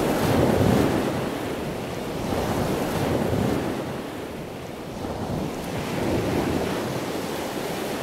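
Sea waves surging and washing in, a steady rushing that swells and fades about every three seconds.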